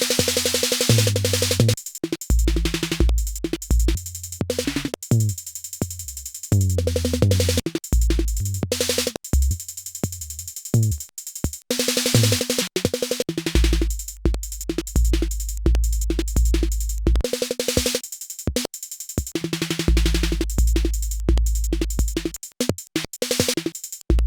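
Eurorack modular synthesizer patch built around a CV Peaks module (a modified Mutable Instruments Peaks), playing a choppy electronic drum-machine pattern. Deep synthesized kick and bass tones step in pitch under short, sharp noise hits that cut off abruptly.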